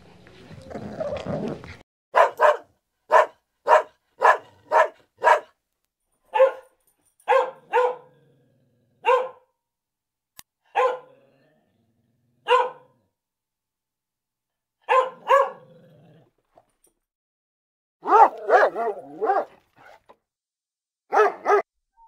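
Doberman barking: short, sharp single barks, first in quick runs of several a second, then spaced out with gaps of a second or more, and a fast cluster of barks about eighteen seconds in.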